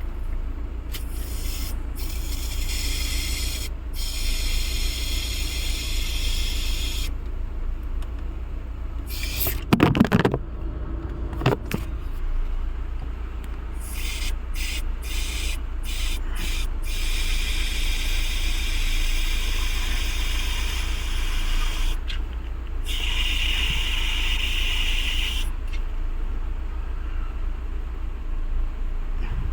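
Hissing spray in repeated bursts lasting from under a second to about five seconds, while a car's AC cooling coil is cleaned, over a steady low hum. A knock and rattle about ten seconds in.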